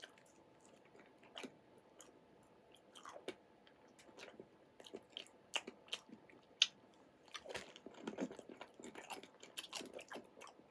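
A person chewing a mouthful of Smith's Scampi Fries, a crunchy cereal snack, with faint, irregular crunches and clicks.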